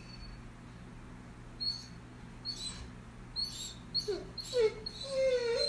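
Greater Swiss Mountain Dog whining: short thin high whines from about a second and a half in, then a few falling whines and a longer drawn-out one near the end. It is the worried whine of a dog that knows a stranger is in the house.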